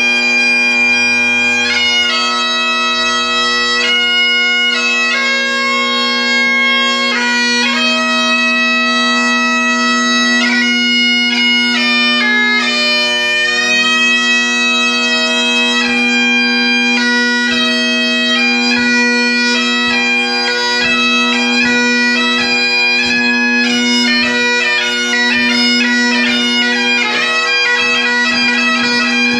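Great Highland bagpipe played solo: steady drones under a chanter melody, the notes coming quicker and more densely ornamented in the last third.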